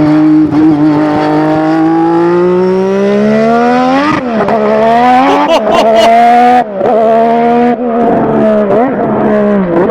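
McLaren Honda MP4/4's 1.5-litre turbocharged Honda V6 pulling away and accelerating hard. The revs climb steadily for about four seconds. Then it shifts up through the gears, the pitch dropping sharply and climbing again about once a second.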